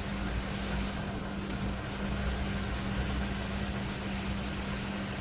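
Steady electrical hum with an even, fan-like hiss and low rumble, with a single faint click about one and a half seconds in.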